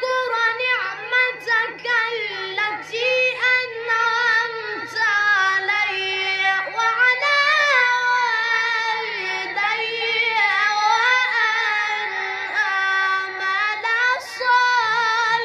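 A boy reciting the Quran into a microphone in the melodic Egyptian mujawwad style, with long drawn-out phrases and ornamented, wavering held notes broken by short pauses for breath.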